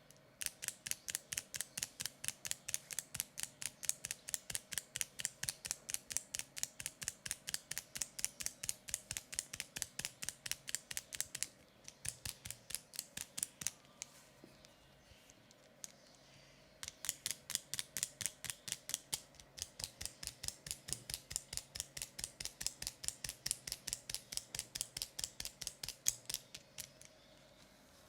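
Barber's scissors snipping rapidly in the air: crisp, even clicks about five a second, in two long runs with a pause of a few seconds midway.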